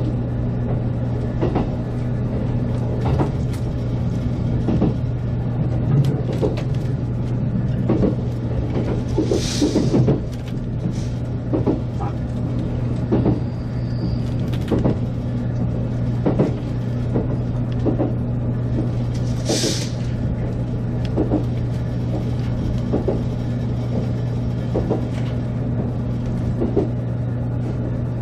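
JR Kyushu 783 series electric train running along the line. A steady low hum is overlaid with irregular knocks and clacks from the wheels on the track. Two brief hisses come about a third and two-thirds of the way through.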